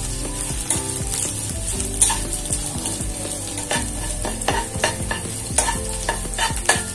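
Sliced onions and curry leaves sizzling in hot oil in a nonstick kadai while a spatula stirs and scrapes them. In the second half the spatula knocks against the pan in a quick run of sharp clicks.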